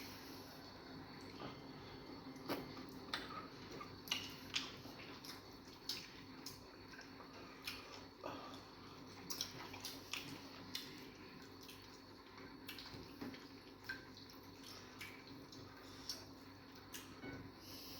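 Faint, wet eating sounds: irregular lip smacks and soft squishy clicks of fufu and egusi soup being chewed and eaten, a few every second or two.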